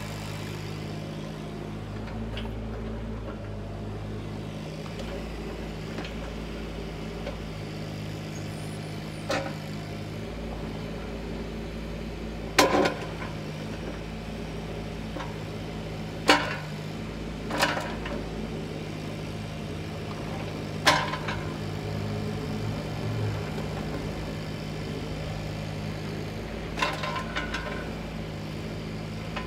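Volvo EC35C mini excavator's diesel engine running steadily while the machine slews and works its boom. Six short, sharp knocks stand out over the engine, the loudest about twelve seconds in.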